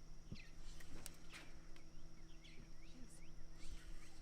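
Small bird chirping in the background: a quick series of short, falling chirps starting about halfway through, with a couple of faint clicks earlier on.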